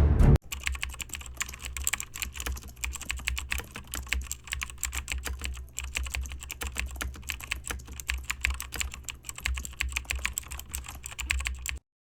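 Fast typing on a computer keyboard: a dense, uneven stream of key clicks over a steady low hum, stopping abruptly near the end.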